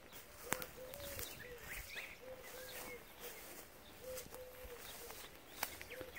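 Faint birdsong: a low cooing note repeated about once a second, with short higher chirps and a few soft clicks.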